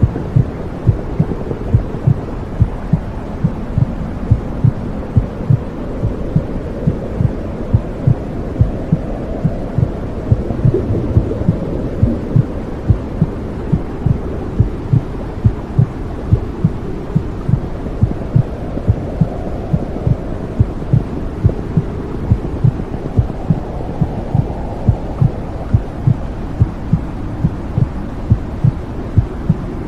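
Womb sound: a heartbeat thumping evenly, about two thumps a second, over a steady low whooshing rush.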